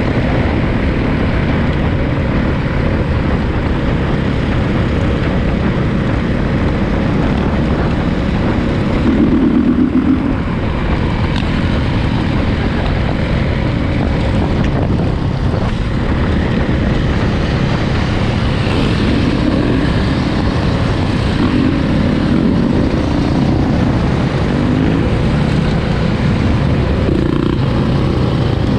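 2021 Honda CRF450 dirt bike's single-cylinder four-stroke engine running under way, mixed with steady wind noise. It swells briefly louder about nine seconds in.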